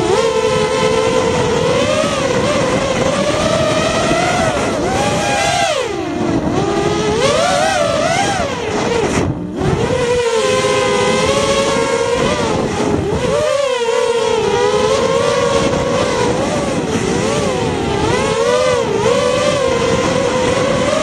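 4S FPV racing quadcopter's brushless motors and propellers whining up close, their pitch rising and falling constantly with the throttle. There is a short drop in the sound about nine seconds in.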